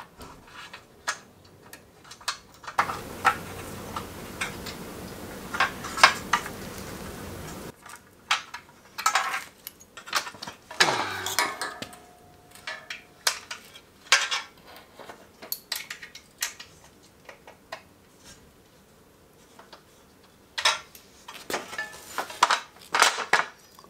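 Light bar mounting bolts and brackets clinking and clicking against an aluminium roof-rack crossbar as they are fitted and tightened by hand. About three seconds in, a steady hiss runs for about five seconds.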